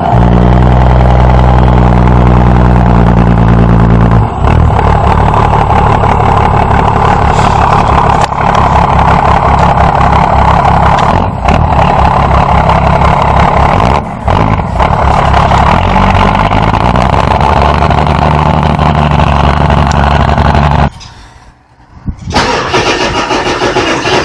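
A large engine started from cold and running loud and steady, its note shifting about four seconds in. Near the end it drops out abruptly for about a second, then a different engine sound takes over.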